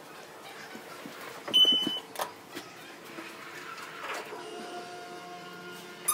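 Elevator arrival chime, one short high tone about one and a half seconds in, followed by a couple of knocks. From about four and a half seconds there is a steady mechanical hum as the elevator car runs.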